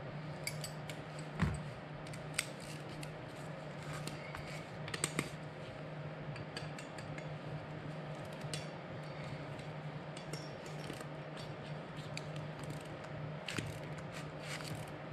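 A wrench clicking and metal tools handled on the wheel bolts as the through-bolts of a split aircraft main wheel are torqued. It comes as a few sharp clicks spaced seconds apart over a steady low hum.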